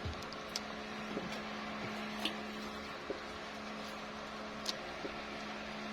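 A steady, even hum with a few sharp clicks scattered through it.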